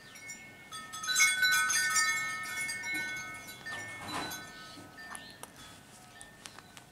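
Small metal chimes jingling and ringing, several clear tones sounding together, loudest about a second in and then fading, with a few fainter strikes later.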